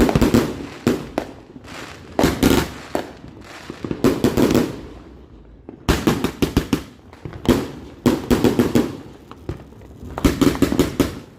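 Fireworks going off in repeated clusters of sharp bangs and crackles, a new burst every second or two, with a brief lull about halfway through.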